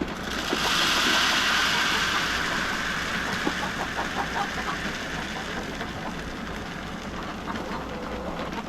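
Dry chicken feed pouring into a feeder: a rushing hiss that starts just after the beginning, is loudest for the first couple of seconds, then slowly tails off.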